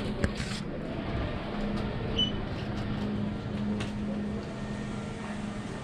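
Steady low machine hum of a shop interior, with a sharp click just after the start and a short high beep about two seconds in.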